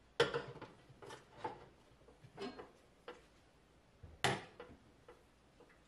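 A stainless steel stockpot and its glass lid being handled, making a few scattered knocks and clinks of metal and glass. The loudest come just after the start and about four seconds in.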